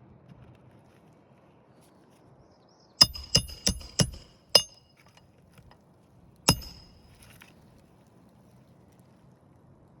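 Hammer blows ringing on metal during shingle repair work: five quick sharp strikes, then a single strike about two seconds later.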